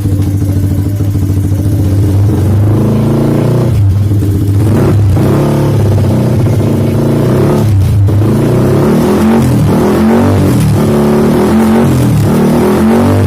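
Single-cylinder Yamaha R15 V3 engine in an old Vixion motorcycle running steadily for about four seconds, then revving up and down with brief drops in between.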